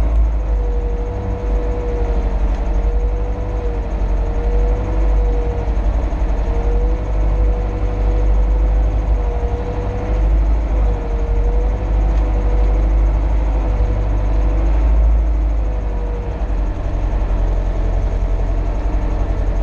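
Mercedes-Benz MB Trac 800 tractor's six-cylinder diesel engine running steadily as it drives along, heard from inside the cab, with a wavering whine over the engine that stops a few seconds before the end.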